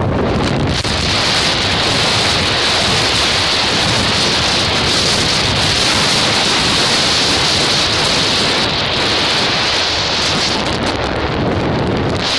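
Steady loud rush of wind buffeting the microphone of a camera on a moving motorbike.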